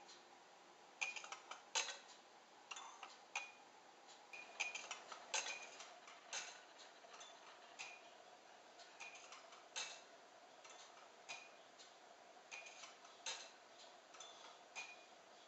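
Ceramic and brass single-pivot grasshopper escapement ticking as it runs. The clicks are faint and sharp, uneven, about one or two a second, some in close pairs.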